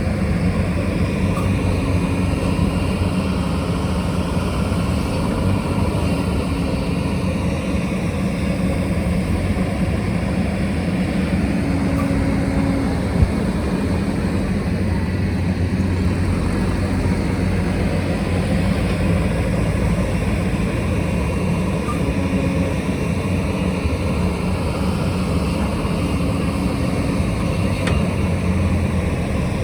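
Diesel engine of a heavy construction machine running steadily under work, with one short knock about thirteen seconds in.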